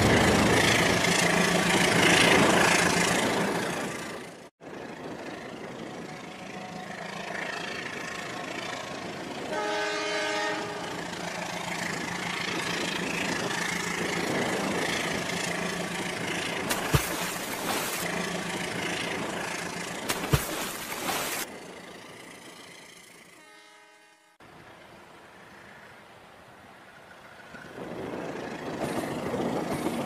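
Toy trains running, a noisy rumble with a steady hum that breaks off sharply about four seconds in. A train horn sounds briefly about ten seconds in and again just before twenty-five seconds.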